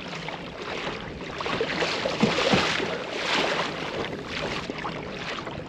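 Water rushing and splashing along a kayak's hull as it moves across choppy water, with wind on the microphone; the splashing swells louder a couple of times midway.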